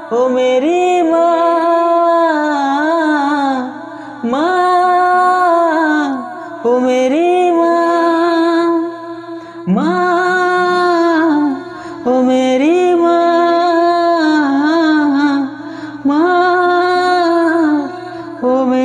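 A man singing the closing of a Hindi song without clear words, long held and gliding notes in phrases of about two to three seconds with short breaks between them, over a faint steady low accompaniment.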